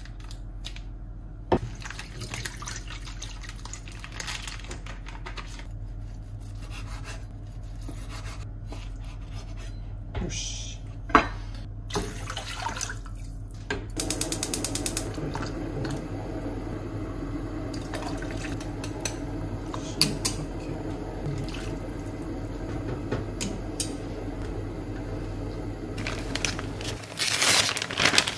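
Kitchen water sounds: konnyaku and its packing liquid pouring from the cut bag into a metal strainer in a stainless-steel sink, with a few knocks. From about halfway, a pan of water bubbles at the boil on a gas stove, over a steady low hum.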